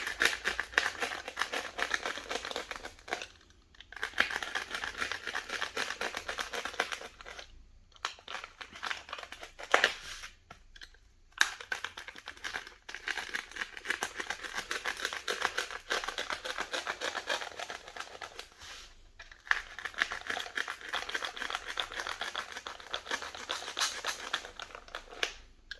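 A knife cutting through layered shadow foam, a dense scratchy crackle as the blade is drawn along, broken by a few short pauses between strokes.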